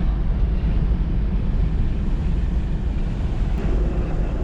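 Steady low rumble of a car's engine and tyres heard from inside the cabin while driving. A faint steady hum joins near the end.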